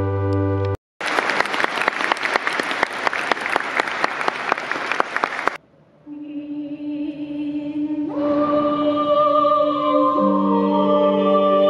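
A held musical chord breaks off, followed by applause for about four and a half seconds. After a brief gap, a small chamber ensemble of chamber organ and strings begins a slow piece: one steady held note, joined by higher notes about two seconds later and a low note near the end.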